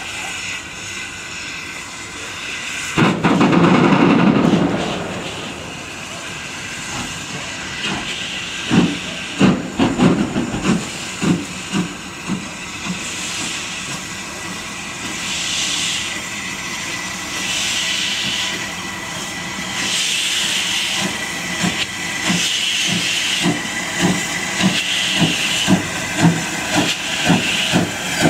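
Steam locomotive moving off. A loud blast of steam comes about three seconds in, then slow exhaust chuffs begin, uneven at first and growing steadier and quicker, with hissing from the open cylinder drain cocks.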